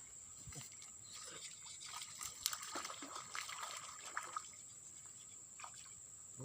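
Water splashing and trickling in a cluster of short strokes for a few seconds, over the steady high drone of insects.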